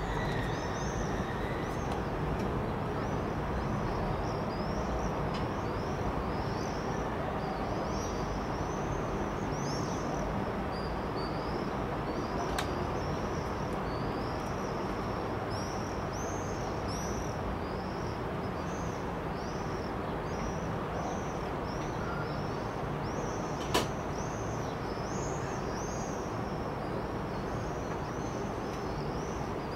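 Birds chirping over and over in short high calls, about one or two a second, above a steady low background rumble. Two sharp clicks stand out, one a little before the middle and one near the end.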